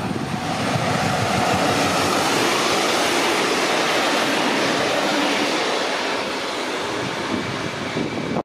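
Diesel-hauled freight train passing close by, its covered hopper wagons rolling over the rails with steady wheel-on-rail noise. The sound swells about a second in and eases slightly near the end.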